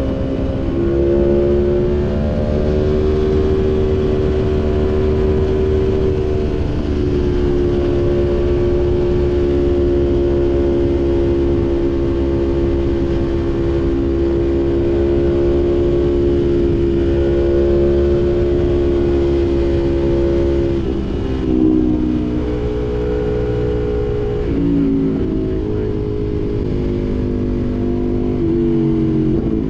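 Aprilia Tuono V4 motorcycle engine running under way at steady revs. About two-thirds of the way in the revs drop and shift several times, then climb again near the end.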